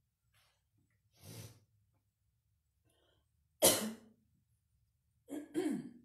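A woman coughing: a breathy huff about a second in, one sharp loud cough about three and a half seconds in, and a voiced throat-clearing near the end, from a sore throat.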